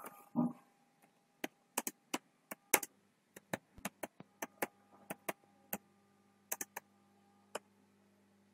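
Computer keyboard keys clicking in an irregular run of about twenty keystrokes as text is typed. A faint steady hum sits under the second half.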